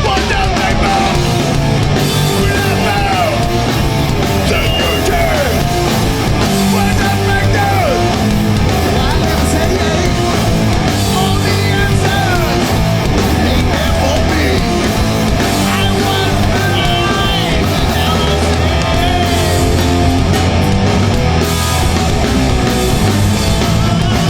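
Live hardcore punk band playing at full volume: distorted electric guitars, bass and drums, steady and loud throughout.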